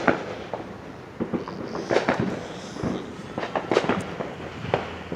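Fireworks going off: an irregular string of sharp bangs and pops, a dozen or so spread over the few seconds.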